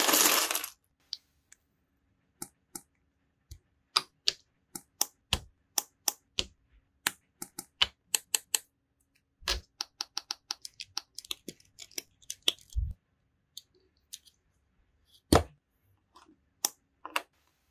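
A brief plastic-bag rustle as small plastic building bricks spill onto a cutting mat, then a long run of sharp, irregular clicks as the bricks are snapped together and set down.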